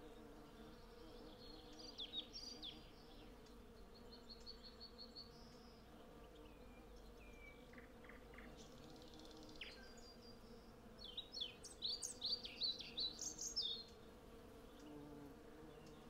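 A swarm of honey bees foraging at a blossoming cherry tree, buzzing in a steady low hum. Songbirds sing over it: a few calls and a short trill early, then a louder burst of song in the last third.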